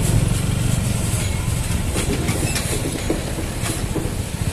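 Engines running at low speed: the low drone of a tipper truck close ahead mixed with a motorcycle's engine, with scattered rattling clicks over the rough road.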